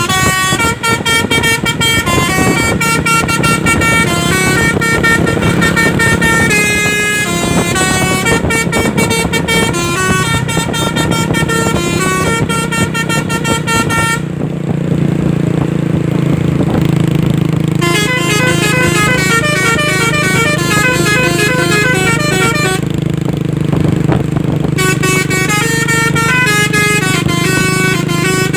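Truck 'telolet basuri' musical air horns, a set of tuned horns sounded in quick succession, playing a melody in short stepped notes over a steady engine drone. The horns stop twice for a few seconds, about halfway through and again near the end, while the drone carries on.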